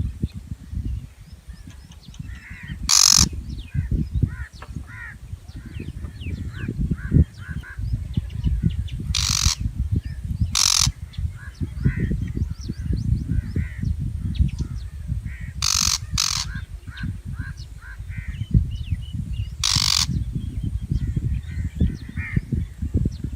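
A shrike gives six harsh, rasping calls, two of them in quick succession, among many short high chirps. A constant low rumble runs underneath.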